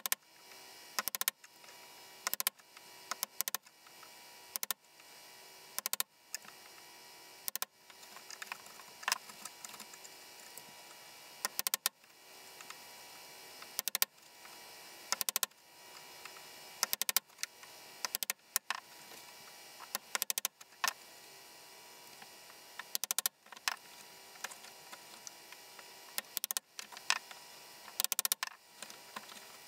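Wooden mallet striking a chisel to chop a mortise in wood: sharp knocks about once every second or two, some in quick pairs.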